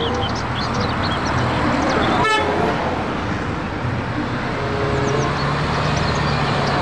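Street traffic with a red double-decker bus running as it drives past, a steady low engine hum over road noise. A single short horn toot about two seconds in.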